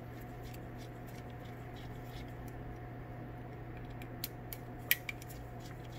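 Faint small clicks and ticks of a miniature hex driver turning fasteners out of the metal prism mount of a microscope observer tube, the screws coming out easily, with one sharper click just before five seconds in. A steady low hum runs underneath.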